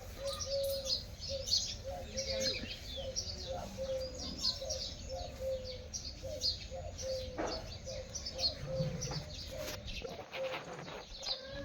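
A flock of birds chirping and twittering, with many short high calls overlapping throughout and a low, steadily repeated note underneath.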